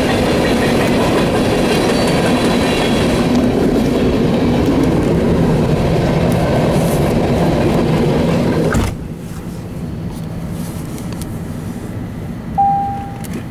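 Coal train gondolas rolling past, with a steady rumble and wheel clatter over the rail joints; the clatter cuts off abruptly about nine seconds in. A short ringing tone sounds near the end.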